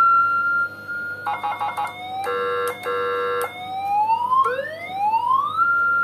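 Electronic siren of a CJB 200 W siren module through the lightbar's speaker, being switched between its tones. A high wail tone holds, then a short rapid buzzy burst and two short horn-like blasts follow, then the wail climbs again in rising sweeps to its top pitch near the end.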